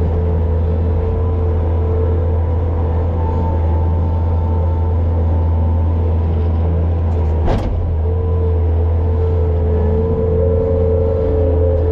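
A vehicle engine running steadily at constant speed with a low rumble and a steady whine over it, and one sharp click about seven and a half seconds in.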